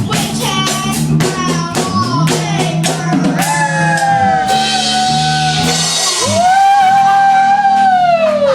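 Rock music: a singer over drums and guitar, with quick, steady percussion hits through the first half, then long held sung notes, the last sliding down in pitch near the end.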